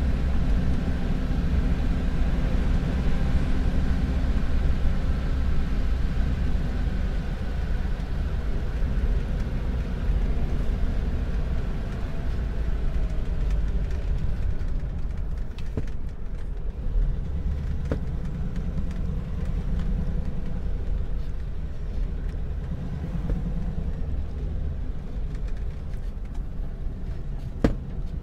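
An old Ford running down the road: a steady low engine and road rumble, with engine tones that ease about halfway through, and a sharp click near the end.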